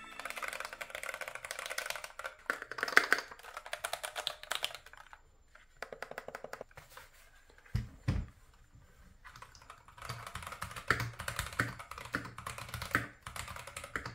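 Keychron V1 mechanical keyboard with Gateron Red linear switches being typed on: fast runs of key clacks for the first few seconds, then two low thumps, then slower, separate key presses.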